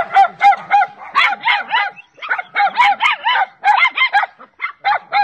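Small dog yelping rapidly, about four high yelps a second in quick runs with short breaks: the dog is conscious again after CPR.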